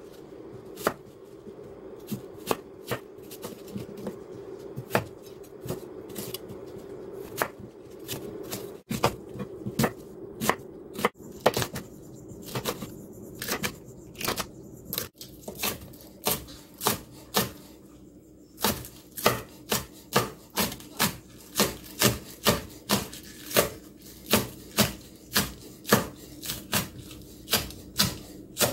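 Kitchen knife chopping produce on a wooden cutting board, the blade knocking the board with each cut. The cuts are irregular at first, then settle into a steady rhythm of about two a second in the second half, over a faint steady hum.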